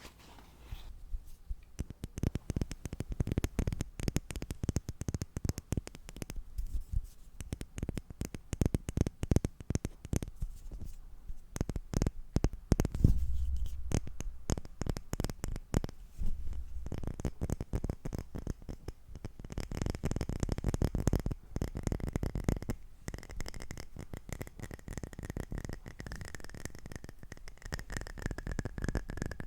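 Rapid, close-miked fingertip tapping and scratching on objects, dense and irregular, for ASMR.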